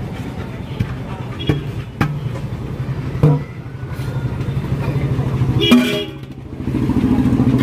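Street traffic noise: a vehicle engine running steadily close by with a low, even throb that grows louder near the end. A few sharp clicks and clinks and a brief pitched sound stand out over it.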